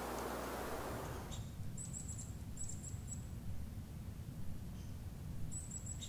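High, thin calls of a small songbird in quick clusters of short notes, about two seconds in, again around three seconds, and near the end, over a low rumble. A steady hiss at the start cuts off suddenly a little over a second in.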